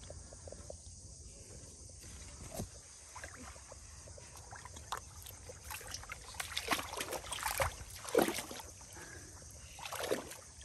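Water splashing and sloshing in irregular strokes, sparse at first and then busier and louder in the second half, over a steady high hiss.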